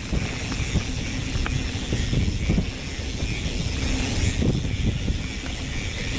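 Mountain bike riding over a dirt trail: a steady low rumble of tyres and air on the move, with scattered knocks and rattles from the bike over bumps.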